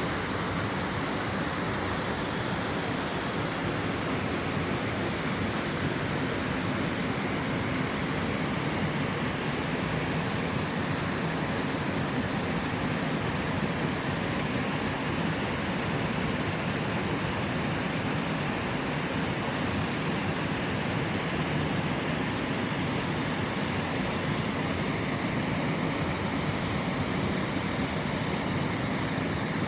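Small waterfall rushing steadily, its flow swollen after rainfall.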